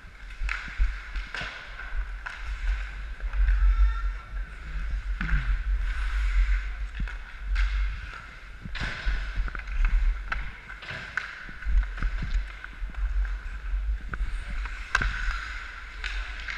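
Ice skates scraping and gliding on the rink, with sharp scattered clicks of hockey sticks and puck, over a steady low rumble.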